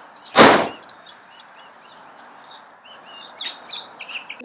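Birds chirping in the background, with one loud short thud about half a second in and a few light clicks near the end.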